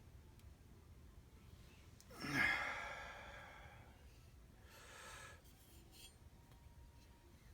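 A man sighs once about two seconds in, a voiced exhale falling in pitch and fading away, followed by a softer breathy exhale around five seconds; otherwise only low room noise.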